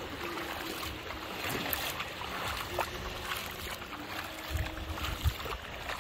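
Shallow seawater swishing and splashing around the legs of someone wading through it, with wind on the microphone and a few low thumps near the end.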